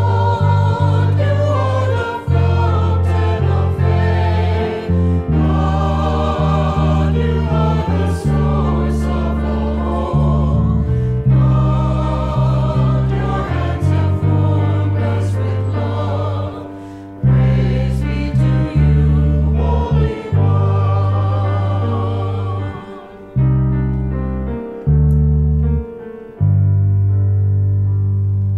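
A small group of singers sings a hymn in harmony over long, steady low bass notes, in phrases with short breaths between them.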